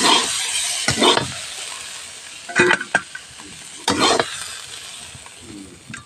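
A metal spoon scrapes four times through fried bitter gourd pieces in a hot kadhai as they are scooped out of the oil. The oil sizzles lightly between the strokes.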